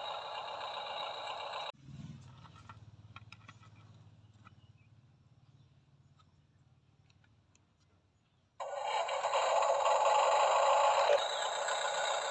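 Electric motor and plastic gearbox of a remote-control toy construction machine whirring steadily. The whir stops abruptly under two seconds in, leaving a faint low hum and light clicks that fade away, then starts again loudly about eight and a half seconds in.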